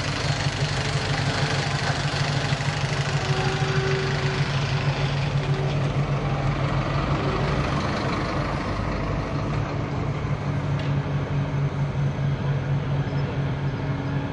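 Heavy diesel machinery running steadily with a low, even hum, faint higher tones coming and going above it.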